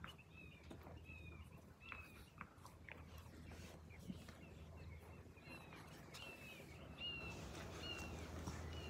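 Faint mouthing and chewing of Australian cattle dog puppies playing: soft wet clicks and fur rustling as they nibble at a hand and each other. Short high falling chirps repeat throughout, more often near the end.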